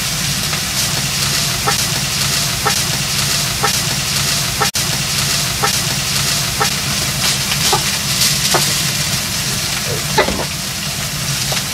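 A beef steak sizzling in a frying pan on an induction hob, as a steady hiss over a steady low hum. Faint ticks come about once a second, and the sound cuts out for an instant about halfway through.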